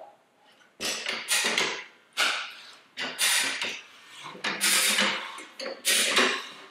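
Rabaconda tire changer's bar being levered around a spoked motorcycle wheel, the stiff, soap-lubricated tire bead rubbing off over the duck head with clunks of the metal tool. It comes as a string of short scraping rasps, about two a second.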